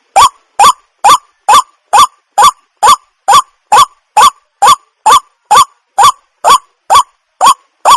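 Waterhen calling: a short rising call repeated at an even pace, about two calls a second.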